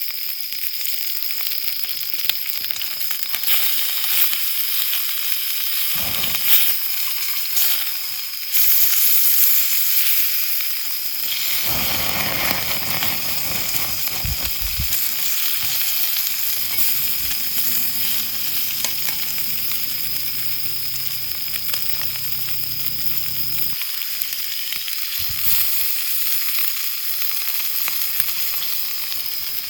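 Food sizzling in a frying pan, with a steady hiss that surges louder for a couple of seconds about a third of the way in, and a few light knocks.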